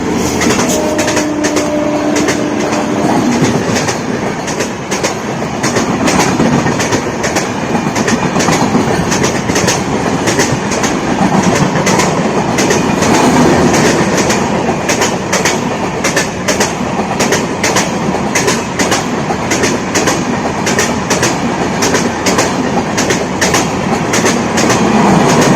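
Indian Railways express train passing at speed close by: a steady rumble of the coaches with a fast, regular clickety-clack of wheels over rail joints. A low horn note ends about three seconds in.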